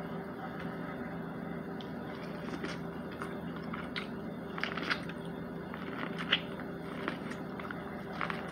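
Close-up eating of breaded fried chicken: bites and chewing with scattered short crunches and wet mouth clicks, over a steady low hum.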